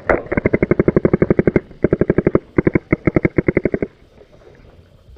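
Paintball markers firing in rapid strings, about ten shots a second, in three bursts that stop about four seconds in.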